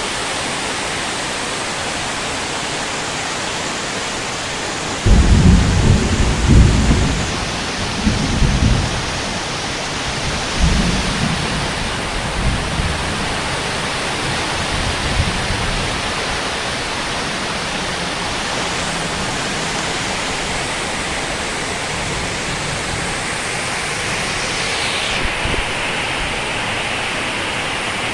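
Heavy rain pouring steadily. About five seconds in, a loud thunderclap breaks and rolls on in several rumbles, fading away over some ten seconds.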